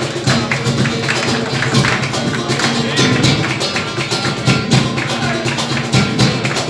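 Live flamenco: a nylon-string flamenco guitar playing, with rhythmic hand claps (palmas) and cajón beats.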